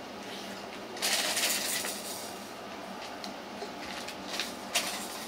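Objects being handled: a second or so of rustling, then a few light clicks and clinks.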